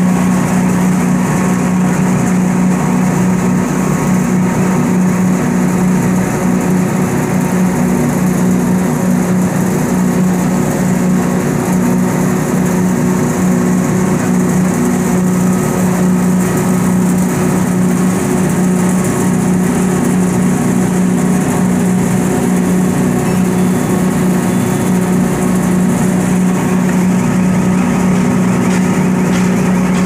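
Sawdust grinding plant running: the wood-powder grinding mill and its air-conveying blower give a loud, steady machine drone with a rushing hiss of air and material over it.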